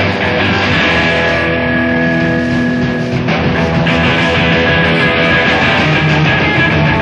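Live hard rock band playing loud electric guitar over bass and drums, on a lo-fi bootleg concert recording. Held notes ring for a couple of seconds in the middle, and the playing changes just after three seconds in.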